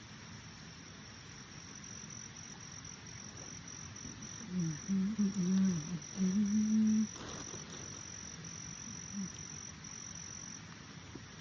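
An insect trilling in a steady high tone broken into short pulses, stopping about a second before the end. Around the middle come a few short low hums, the loudest sound.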